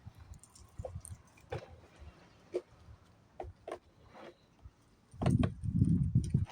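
Light clicks and knocks of tools and parts being handled during work on a concrete saw's carburetor. About five seconds in comes a loud, low rumbling rush lasting about a second and a half.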